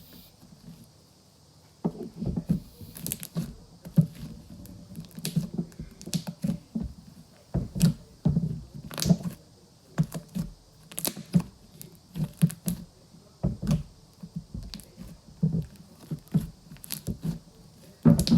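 Hands kneading and squishing fluffy shaving-cream slime to work the colouring in: irregular soft squelches with sticky clicks, a few each second, starting about two seconds in.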